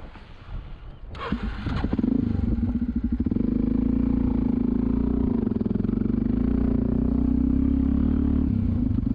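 Wind on the microphone, then about a second in a dirt-bike engine starts up and runs steadily at an even, low pitch.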